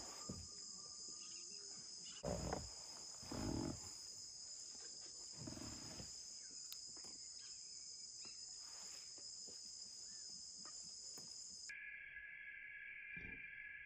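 Steady, shrill chorus of insects droning on one high pitch. It cuts off near the end and a lower-pitched insect drone takes over. A few soft bumps sound early on beneath it.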